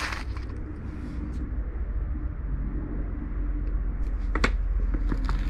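Steady low rumble with a few short knocks and clicks, one at the very start and another about four and a half seconds in.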